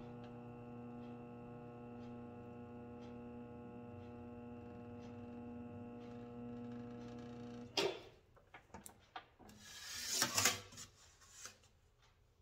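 Electric bead roller running with a steady hum and a faint tick about once a second as its stencil dies roll a border into a sheet-metal sign. The motor cuts off suddenly about 8 seconds in, followed by a clack and the scraping and rubbing of the metal sheet being handled, loudest around 10 seconds in.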